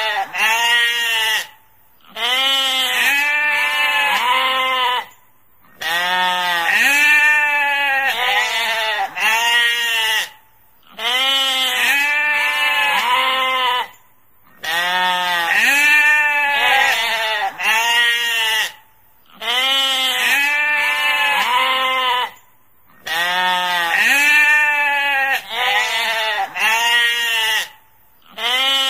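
Sheep bleating: runs of several short, arching baas, one after another, broken by brief pauses every four to five seconds, the same pattern repeating over and over.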